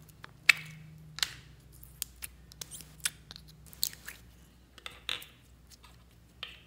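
Small plastic tub of clear red crystal slime being opened and the slime pulled out and squeezed by hand: a sharp snap about half a second in, then a string of irregular sticky clicks and pops.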